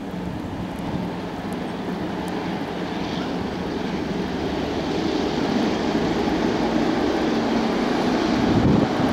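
Heritage diesel locomotives hauling a passenger train, their engines a steady low hum growing louder as the train approaches, with some wind on the microphone.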